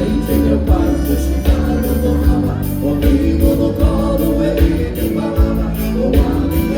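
Live gaúcho dance-band music, accordion-led, with bass and a drum kit keeping a steady, even beat.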